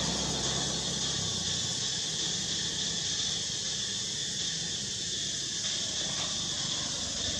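Steady high-pitched insect chorus, an even hiss without pauses, with a low rumble underneath that drops away about a second in.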